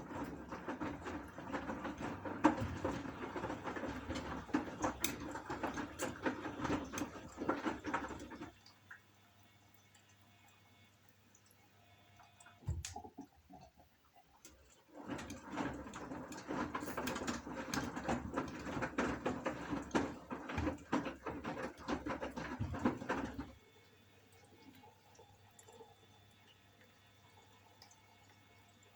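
Gorenje washing machine's drum turning laundry in water during a wash: about eight seconds of sloshing and tumbling, a pause of several seconds with a single knock, then another spell of about eight seconds of tumbling before it stops again.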